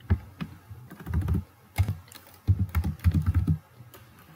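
Typing on a computer keyboard: keys pressed in several short, irregular runs.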